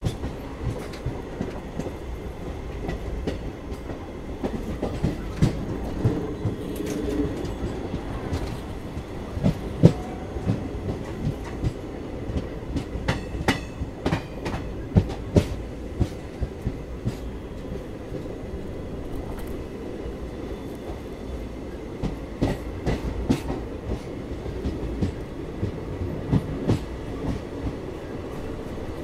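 Express train running at speed, heard from an open coach doorway: a steady rumble of wheels on rail with irregular sharp clicks and clatter as the wheels cross rail joints and crossings, coming in clusters about halfway through and again near the end.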